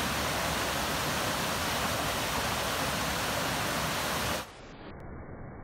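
Mountain stream rushing and splashing over boulders, a steady rush of water. Just over four seconds in it suddenly drops in level and turns muffled, losing its hiss.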